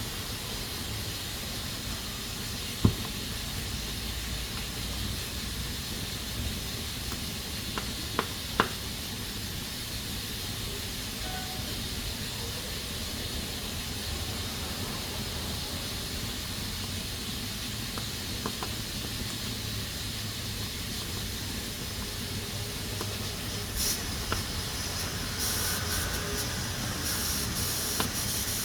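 Pressure cooker hissing steadily as steam escapes through its valve, the hiss getting stronger and uneven near the end. A few sharp clicks come through early on.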